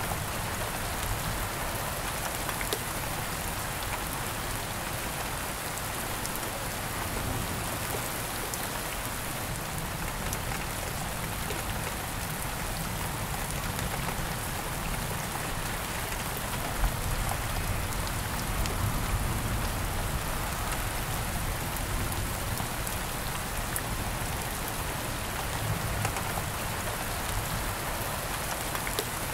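Steady rain falling on a surface, an even hiss with scattered individual drop ticks and a low rumble underneath.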